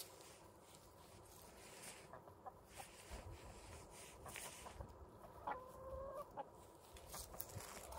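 Chickens clucking faintly, with one drawn-out call lasting about a second, a little past the middle.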